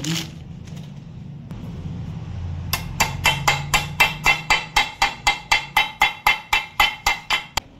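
Rapid hammer blows on a steel axle used as a drift, driving a new 62003 ball bearing into its seat in a Hero Splendor motorcycle's aluminium crankcase half. After a few seconds of handling, the strikes start and keep up at about four a second, each with a short metallic ring.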